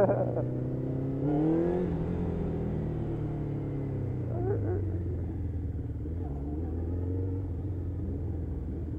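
Motorcycle engine running at low speed. The revs rise briefly about a second and a half in, then ease off slowly.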